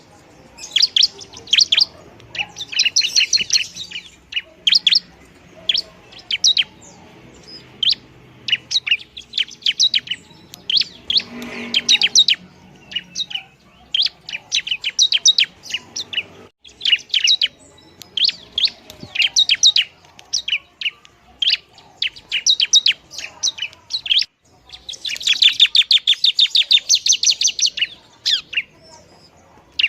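Bar-winged prinia (ciblek) calling: rapid runs of sharp, high chips repeated in bursts with short pauses between, the densest and loudest run near the end.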